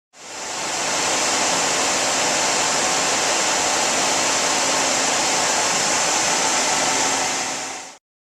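Loud, steady static hiss on a cable TV channel's audio. It swells in over about a second out of dead silence and cuts off abruptly near the end. It is a fault in the cable feed's audio during an Emergency Alert System relay.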